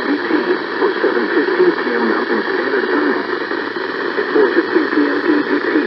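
A voice talking over a radio receiver: thin and band-limited, with a steady hiss under it.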